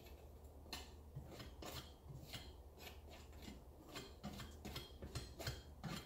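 Faint rustling and light scrapes from hands working over the wet painting and its plastic drop cloth, in short irregular strokes over a low steady hum.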